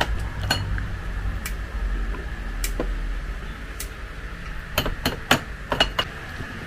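Scattered light clicks and clinks of glass as a Jack Daniel's whiskey bottle is opened and handled over a glass-topped table, about a dozen irregular ticks.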